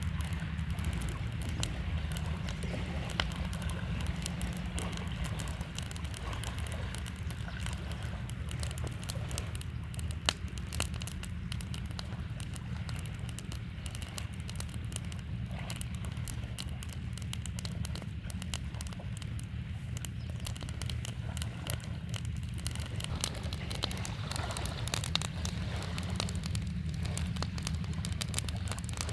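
A wood campfire crackling, with frequent irregular sharp pops and snaps, a few louder than the rest. Beneath it runs the steady low rush of a flowing river.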